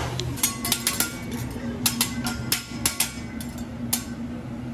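A hibachi chef's metal spatula and knife clinking and tapping against each other and the steel griddle, about a dozen sharp ringing clinks in an uneven rhythm that stop about four seconds in. A steady hum runs underneath.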